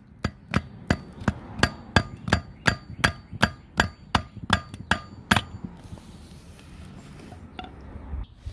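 Rubber mallet striking the side output flange of a Nissan 300ZX (Z32) rear differential, about three blows a second for some five seconds, then stopping. The blows knock the side stub shaft loose so it can be pulled out to reach the side seal.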